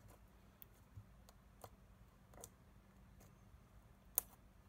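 Glittery slime with blue tack mixed in being pressed and kneaded by fingers, giving faint, scattered clicks and small pops, with one sharper click about four seconds in.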